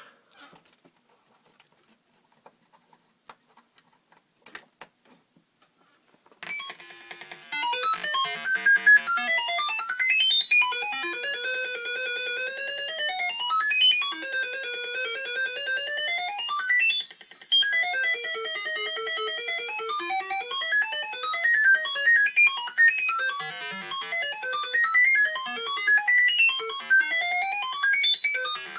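Homemade Arduino theremin playing a buzzy electronic melody through a small amplifier and speaker, with stepped notes and swooping glides up and down in pitch as a hand moves near its antenna. It starts about six seconds in, after a few faint clicks.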